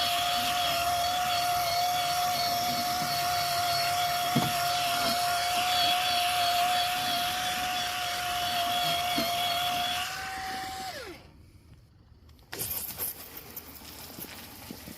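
Ryobi 18V cordless power scrubber running with a steady motor whine as its brush scrubs a moldy boat seat. About ten seconds in, the pitch steps up briefly as the brush comes off the surface, then the motor winds down and stops. After a short pause, fainter rustling noise follows.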